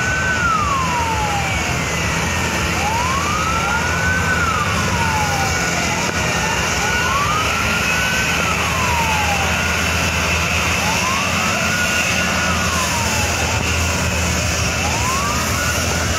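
Fire truck siren wailing in slow cycles, each rising and falling over about four seconds, over a steady rushing noise and a low engine drone.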